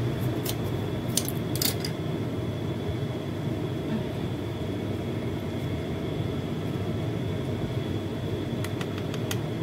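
A steady low rumble with a faint, steady high tone above it. Light plastic crinkles and clicks come about a second in and again near the end as a small sachet of Kara coconut milk is squeezed out over the pot.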